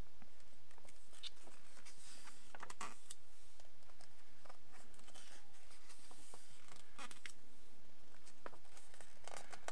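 Pages of a coloring book with stiff, heavy paper being turned and smoothed flat by hand: scattered soft paper rustles and light ticks over a steady faint hiss.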